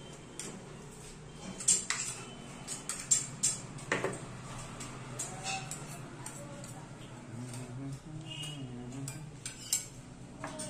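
Steel spoon clinking and scraping against stainless-steel plates and bowls while eating, a scatter of irregular sharp clinks, most of them in the first half.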